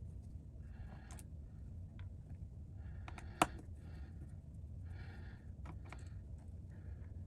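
Small repair tools clicking, tapping and scraping against the iPad's parts in irregular light strokes, with one sharper click about three and a half seconds in, over a steady low hum.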